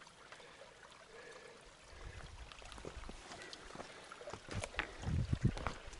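Small seasonal mountain stream trickling over rocks, with a low rumble coming in about two seconds in and a few knocks and thumps near the end.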